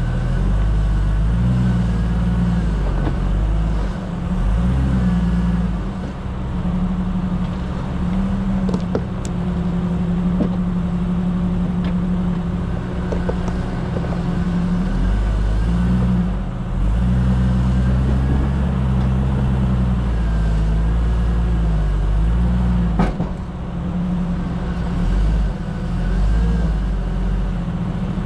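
Off-road 4x4's engine running at low revs while crawling over a rocky trail, its pitch rising and falling with the throttle, with a few sharp knocks along the way.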